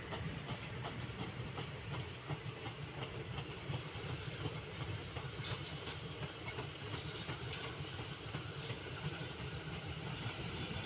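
Indian Railways passenger coaches rolling past on the track: a steady rumble of wheels on rail, with a scatter of clicks from the wheels crossing the rail joints.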